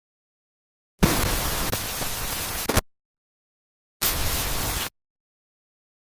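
Harsh static-like noise sound effect in bursts that start and stop abruptly: one about a second in lasting nearly two seconds, and a shorter one of about a second near four seconds in, with dead silence between.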